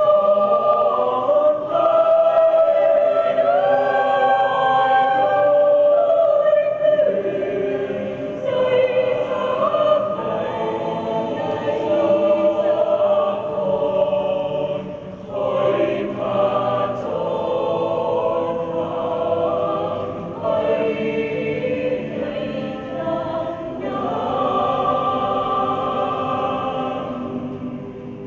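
Mixed choir of men's and women's voices singing slow, held notes, getting quieter over the last few seconds.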